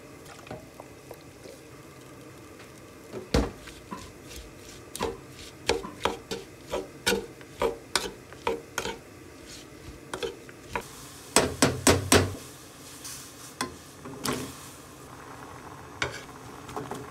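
A metal spoon stirs and tosses seasoned julienned radish in a wooden bowl, clinking and scraping against the wood about twice a second. The loudest cluster of knocks comes about two-thirds of the way in.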